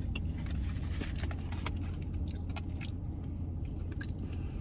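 Close-up chewing and biting of crispy fried chicken wings: irregular small crunches and wet mouth clicks, over a steady low hum.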